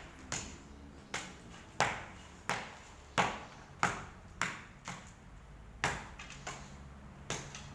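About a dozen sharp hammer strikes on hard tile or masonry at uneven spacing, roughly one and a half a second, each with a brief ring.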